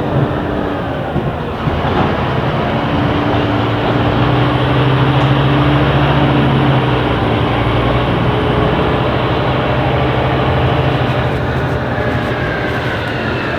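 Scania K270IB city bus's diesel engine running under load, swelling to its loudest in the middle and easing off again, with a whine that falls in pitch near the end.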